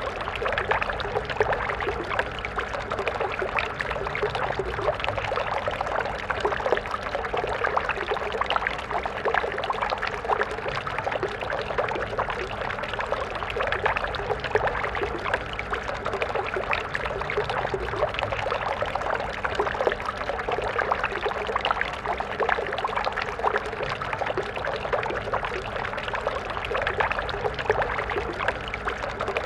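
Stream water flowing and splashing steadily, a constant bubbling rush.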